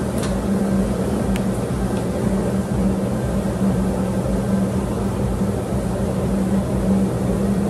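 Steady hum of a running kitchen appliance motor, holding one constant low tone, with a couple of faint ticks about a second in.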